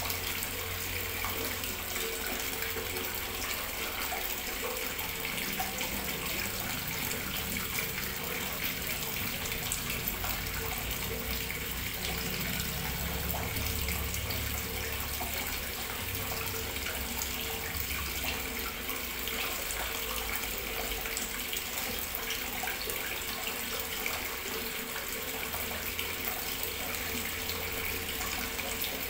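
A steady hiss with a faint steady hum under it, unchanged throughout and with no distinct knocks or clicks.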